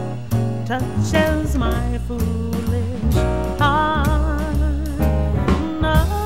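Jazz combo playing with a female vocalist singing a wordless scat line over upright bass and drum kit. About halfway through she holds a wavering note.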